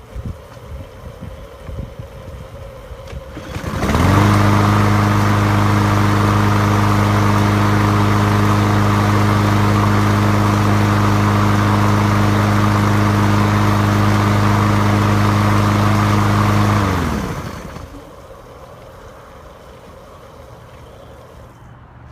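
Craftsman lawn mower engine starting about four seconds in, quickly rising to a steady running speed, then shut off near the end with its pitch falling away. It runs with a garden hose feeding water through the deck wash port, the spinning blade flushing wet grass clippings out from under the deck.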